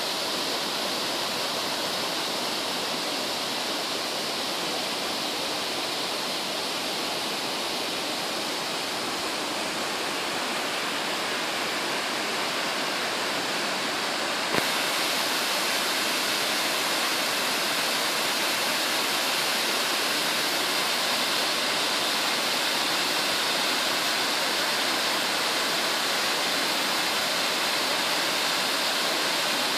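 Mountain waterfall rushing steadily, a constant noise of falling water. A brief click comes about halfway, after which the water sounds slightly louder and brighter.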